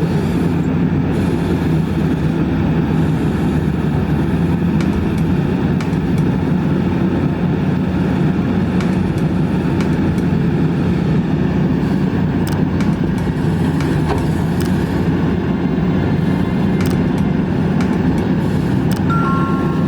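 Kobelco SK200 excavator's diesel engine running steadily under working load, with scattered sharp clicks and knocks from about halfway through.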